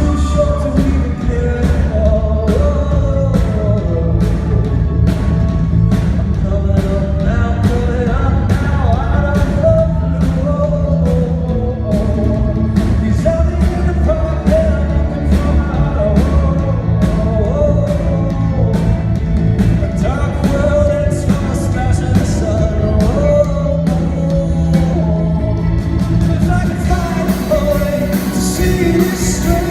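Live rock band performance with a male singer: a sung melody over bass and a steady, even drumbeat.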